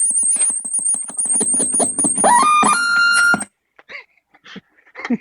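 Water-damaged old Hitachi stereo putting out a high-pitched warbling whistle laced with fast crackling clicks. A little past two seconds in, tones glide upward and stack into a loud squeal, and about three and a half seconds in the sound cuts off suddenly, leaving a few faint clicks. These are the faulty noises of a set that was left out in the rain.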